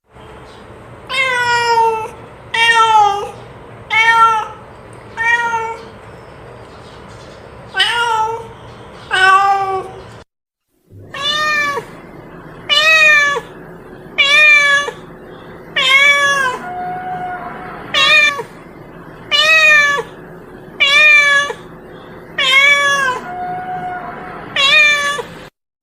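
Domestic cat meowing over and over, about fifteen drawn-out, rising-and-falling meows spaced a second or so apart, with a brief break about ten seconds in.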